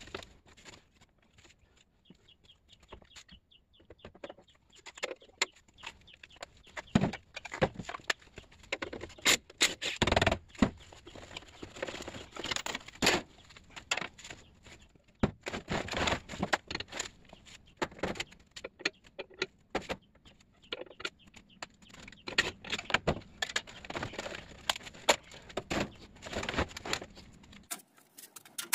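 Irregular clinks, knocks and scrapes of sheet-metal parts being handled and worked loose as a window air conditioner is taken apart by hand for scrap.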